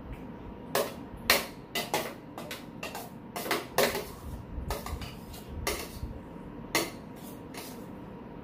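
Metal spoons clinking and scraping against stainless steel bowls, a dozen or so irregular sharp clinks, over a faint steady hum.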